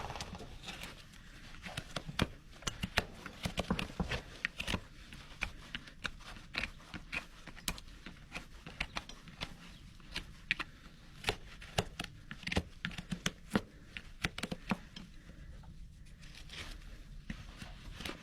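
Hoof horn of a Shire horse being cut and pared: irregular crisp scrapes and snapping clicks, several a second, with short pauses between strokes.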